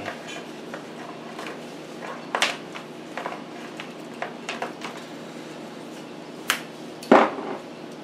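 Electrical tape being pulled off the roll and wrapped around a soldered wire splice: scattered short rasps and clicks over a steady low room hum, with a louder short rasp about seven seconds in.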